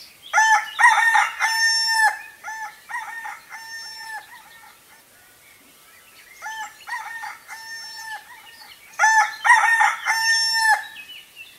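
Rooster crowing: a loud cock-a-doodle-doo near the start and again about nine seconds in, each followed by a fainter crow.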